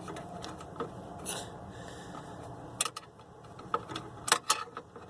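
Hand snips working at a copper power cord: rubbing and scraping as they bite, with a few sharp clicks, one near the middle and two close together near the end.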